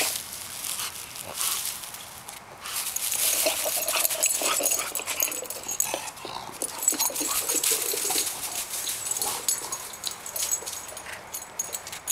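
An English bulldog's snuffling and small vocal sounds as she mouths and shoves a rubber ball around. Irregular scuffing and rustling of paws and ball over dry grass and stone paving runs through it.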